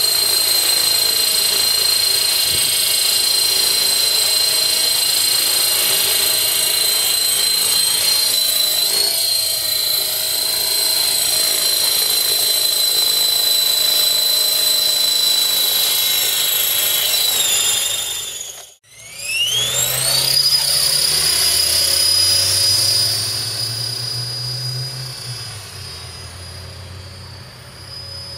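KDS 450 electric RC helicopter's motor and rotor running with a steady high whine. About two-thirds of the way through the sound breaks off abruptly, then the whine rises quickly as the rotor spools up again and levels off. It grows fainter near the end as the helicopter climbs away.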